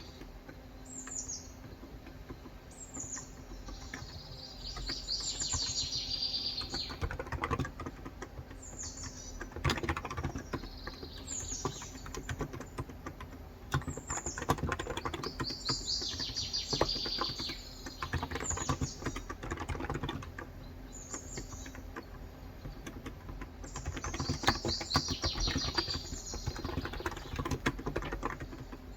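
Typing on a Cox Endeavor electro-capacitive (Topre-style) keyboard with light 35g switches: a steady, irregular patter of keystrokes. Birds sing over it, with short high chirps repeating every second or so and a longer trilling song three times: a few seconds in, midway and near the end.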